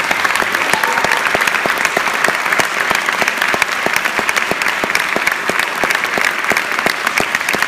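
An audience applauding: dense, steady clapping for a string ensemble's bow.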